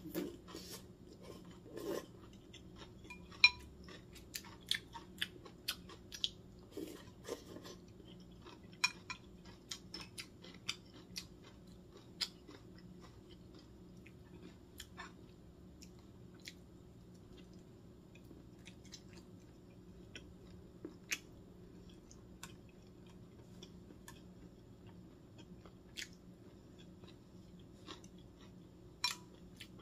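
A person eating close to the microphone, chewing cold soup vegetables and sliced boiled pork. The chewing comes with many short, wet clicks, thick in the first dozen seconds and sparser after, over a faint steady hum.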